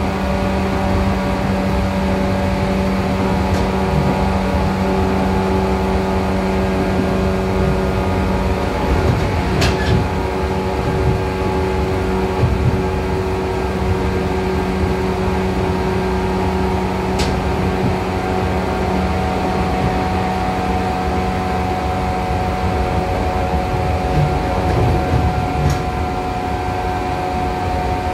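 Running noise inside the motor car of a JR Kyushu 415 series electric train at speed: a steady rumble of wheels on track under a hum of several steady tones from the DC traction motors and gears, whose pattern of tones shifts about nine seconds in. A few isolated sharp ticks sound along the way.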